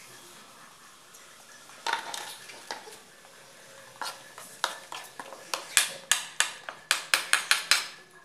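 Metal spoon clinking against the side of a metal kadai while beaten raw egg and spices are whisked together. After a single knock about two seconds in, the clinks start and quicken to three or four a second near the end.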